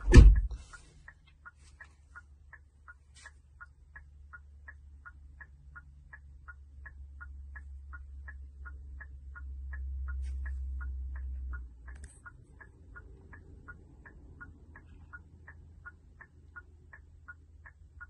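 A steady, even ticking at about three ticks a second, with a thump right at the start and a low rumble that swells and then cuts off about twelve seconds in.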